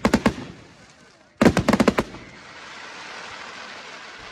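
Aerial fireworks going off: a few quick sharp bangs, then a rapid cluster of bangs about a second and a half in, followed by a steady hiss.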